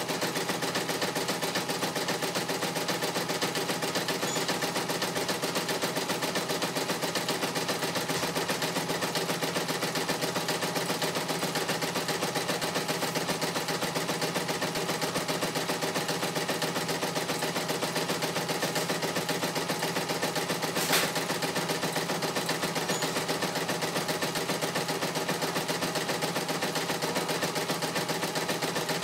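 CNY E900 embroidery machine stitching a design, its needle striking in a fast, even, unbroken rhythm, with one louder click about two-thirds of the way through.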